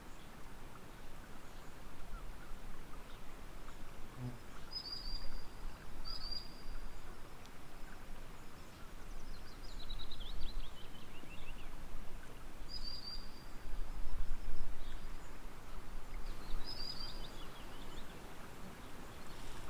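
Steady sound of calm water with birds singing over it: a few short, high chirps spread through, and one longer trill that falls in pitch about halfway through.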